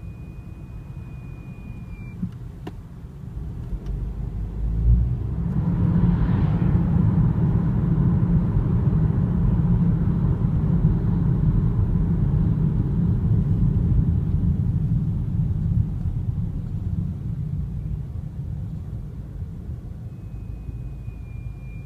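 BMW F30 320i brakes squealing with a thin, steady high-pitched whine that cuts off about two seconds in and comes back near the end. In between, the car's low driving rumble swells, becoming the loudest sound, then fades.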